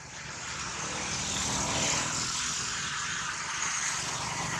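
A distant engine drone that swells over about two seconds and then slowly fades.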